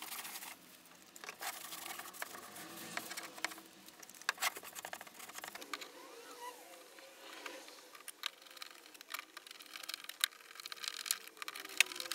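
Light workbench handling sounds: a cloth wiping over plywood at the start, then scattered small clicks and taps as metal toggle clamps are handled and fitted onto a plywood jig base.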